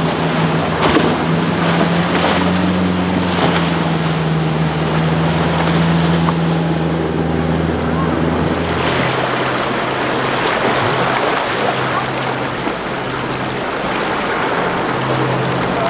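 Hunt Yachts powerboat running at speed through choppy water: a steady engine drone under the rush of the hull and waves, with the engine note shifting about nine seconds in. Wind buffets the microphone.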